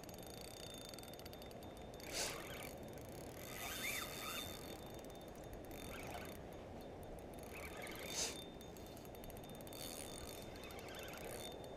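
Spinning reel being cranked, a faint fast mechanical ticking, over a steady low rush, with two brief knocks about two and eight seconds in.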